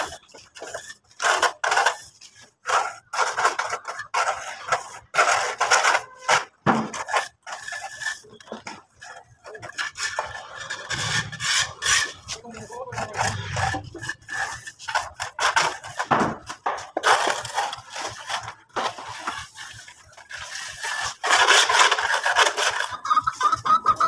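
Plasterer's float rubbing and scraping over fresh cement render on a wall, in many short, irregular strokes.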